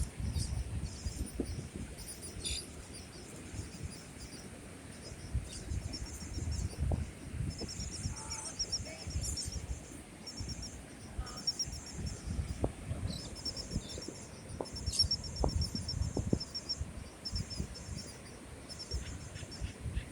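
Rapid high-pitched chirping trills in repeated bursts about a second long, with a few short lower calls, over an uneven low rumble.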